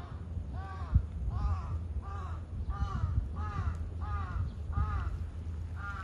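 A crow cawing in a steady series, about eight short harsh calls evenly spaced under a second apart. A dull bump is heard about a second in, and a low rumble runs underneath.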